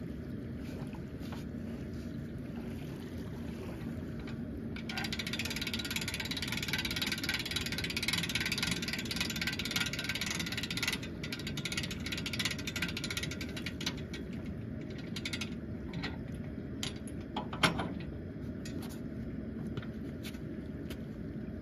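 Hand-cranked boat trailer winch ratcheting as the boat is pulled onto the trailer. A fast run of pawl clicks starts about five seconds in and thins to scattered clicks later, with one sharp, louder knock a few seconds before the end.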